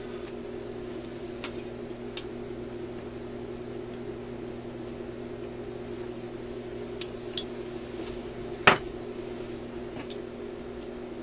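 Newcomb tube record player humming steadily while pliers and fingers work on its tone arm and needle. There are a few light clicks and one loud sharp click about three-quarters of the way through.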